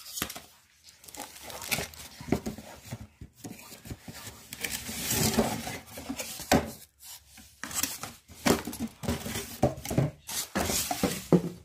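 Plastic packaging bags crinkling and rustling as they are handled, mixed with the scrape and knock of cardboard box inserts, in irregular bursts.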